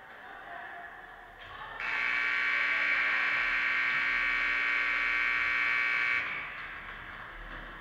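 Ice rink scoreboard horn sounding one steady, buzzy blast of about four seconds that starts and stops abruptly, marking the end of the game.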